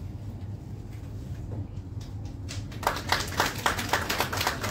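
An audience clapping, starting about halfway through: brisk, fairly even handclaps, about six a second, over a low steady room hum.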